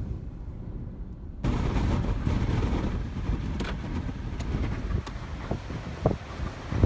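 Storm wind buffeting the microphone: a low rumble that jumps suddenly louder about a second and a half in, with a few knocks near the end.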